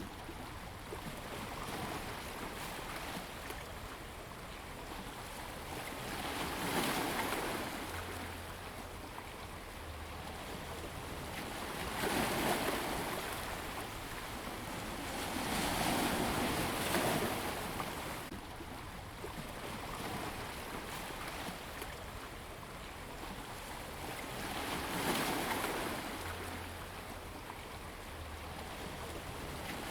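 Ocean waves breaking and washing up a beach: a steady wash of surf that swells louder with each breaking wave, four larger waves in all, about every four to nine seconds.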